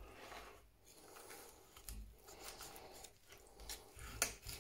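Faint sounds of a knife carving the breast off a roast pheasant, the blade cutting through crisp skin and meat, with a few light clicks near the end.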